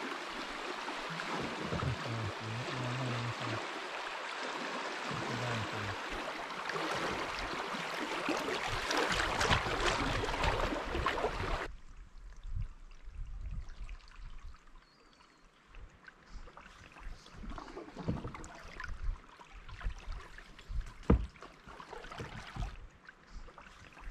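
River water rushing around a canoe for the first half, cutting off abruptly about halfway. Then quieter moving water with scattered splashes and knocks, typical of paddle strokes against the canoe.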